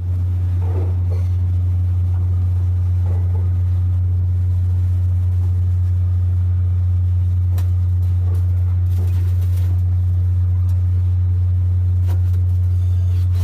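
Mercedes-Benz Actros truck's diesel engine idling steadily, a deep even drone with a few faint ticks over it.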